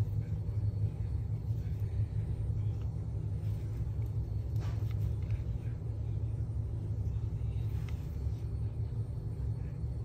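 Steady low background rumble with a faint hum.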